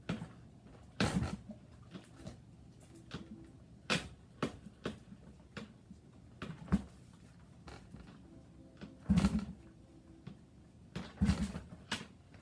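A dozen or so irregular knocks and clunks, the loudest about a second in, around four seconds, and near nine and eleven seconds, with no engine running or catching.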